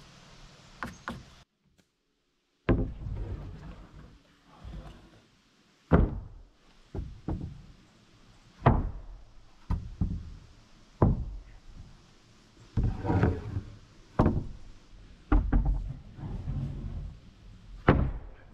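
Milled pine studs being set down and shifted into place on a wooden plank deck: a series of irregular knocks and thunks, about a dozen in all, after a second of silence near the start.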